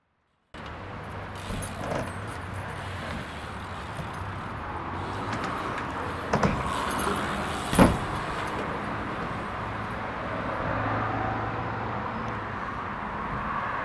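BMX bike rolling through a skatepark: a steady rush of tyres on the ramps with some rattle, and a few sharp knocks, the loudest about six and a half and eight seconds in.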